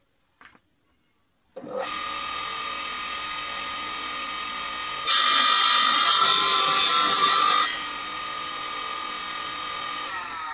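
Table saw switched on about one and a half seconds in, its motor and blade running with a steady high whine. For about two and a half seconds in the middle it is much louder as the blade cuts through a thin wooden strip pushed across on a sled for a 45-degree cut. It then runs free again and begins to slow near the end.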